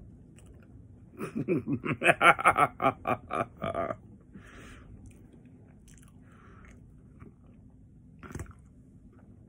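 A man chewing a burrito, broken about a second in by a quick run of about a dozen rhythmic voiced huffs from his mouth and throat lasting under three seconds, then softer chewing and breaths, with a single knock near the end.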